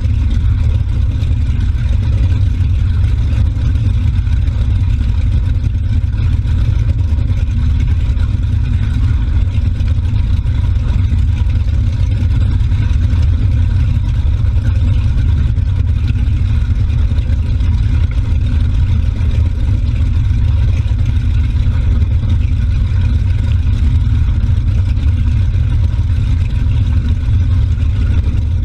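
Motorboat under way at a steady speed: a continuous low engine drone mixed with the churning of the wake right behind the stern, the engine running smoothly.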